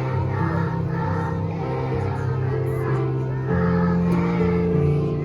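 A group of young children singing together over instrumental accompaniment, whose held low chords change every second or so.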